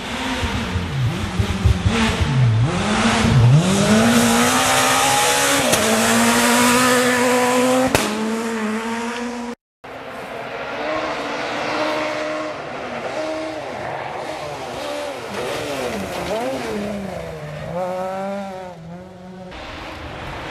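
Rally cars at speed on a gravel stage: engines revving hard, the pitch dipping and climbing with each gear change, with a loud hiss of tyres and gravel as the first car passes close. That pass cuts off abruptly just before halfway, and a second car is heard, its engine rising and falling through several gear changes.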